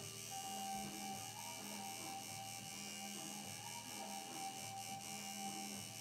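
Electric tattoo machine buzzing steadily, with a lower hum that drops out and returns every second or so.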